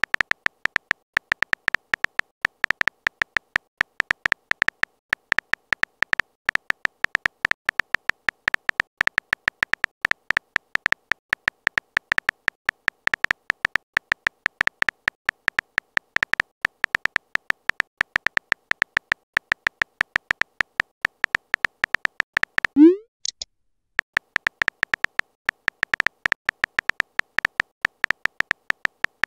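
Simulated phone-keyboard typing sound effect: rapid, even tapping clicks, one per character, as chat messages are typed out. About 23 s in, the typing stops for a short rising blip as a message is sent, then the clicks resume.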